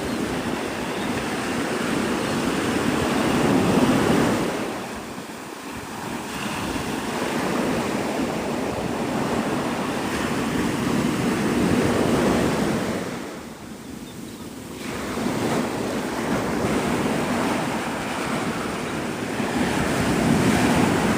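Gulf of Mexico surf breaking on the beach, the wash swelling and fading about every eight seconds, with wind rumbling on the microphone.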